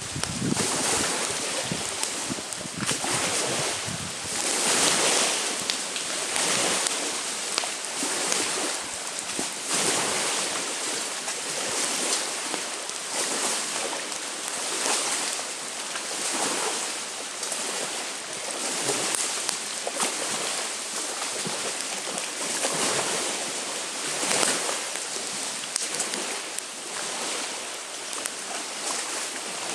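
Small wind-driven waves washing onto a lakeshore in repeated swells every second or two, with wind blowing over them.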